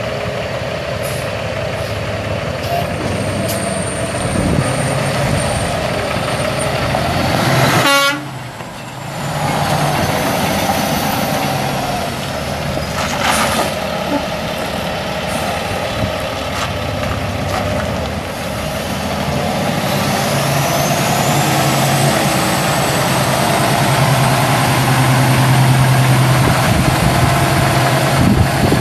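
Cummins ISX 14.9-litre straight-six turbo diesel of a 2007 International 9400i semi tractor running as the truck drives slowly around on gravel. It grows louder as the truck comes close near the end. There is a brief sharp sound about eight seconds in.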